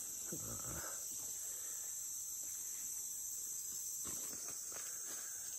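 Steady, shrill chorus of insects, a continuous high-pitched buzzing with no breaks.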